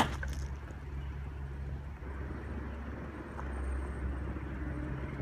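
Compact excavator's diesel engine idling, a low steady hum, with a sharp click at the very start.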